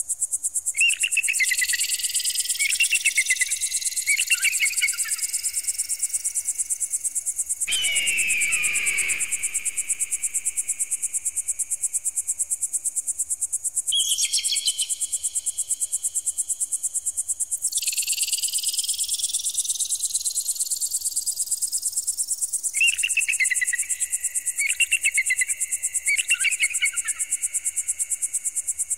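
Electronic pigeon-repeller sound: a continuous fast-pulsing high-pitched tone with rising sweeps twice, overlaid with bursts of shrill repeated calls near the start and near the end and one descending screech about eight seconds in.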